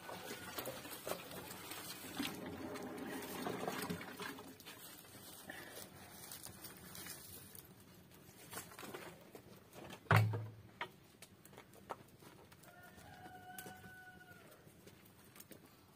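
Domestic chickens calling, with a rooster crowing. A single loud thump comes about two-thirds of the way through, and there are light clicks throughout.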